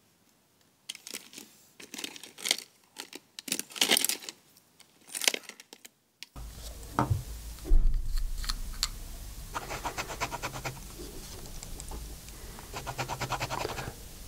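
Clicks and rustles of pens being picked up and handled. Then the fine metal tip of a Rotring Isograph technical pen scratches over paper in quick runs of ticks. The pen's ink has dried up, so it is scratching without drawing.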